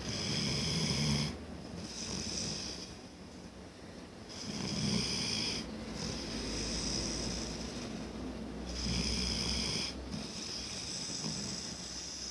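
Snoring: loud, rasping snores that rise and fall with each slow breath, in a steady repeating rhythm.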